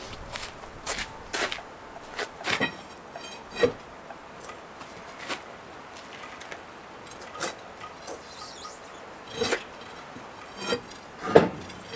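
Irregular knocks and clinks of tools and metal parts being handled during tractor wheel and fender work, about a dozen short hits spread through the stretch.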